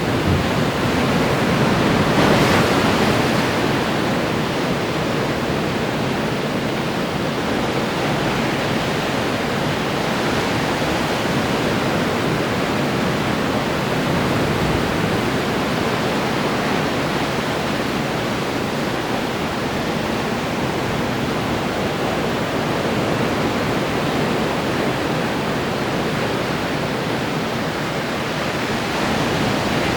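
Ocean waves breaking and washing ashore in a continuous surf roar, with one wave crashing louder about two seconds in.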